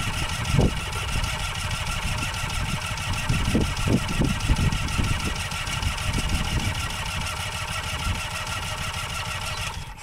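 Rotax 582 two-stroke engine of a microlight trike running on the ground, with an irregular low rumble beneath its steady tone, then cutting out abruptly near the end. The sudden stop is the engine quitting by itself, the fault behind the trike's repeated engine-outs.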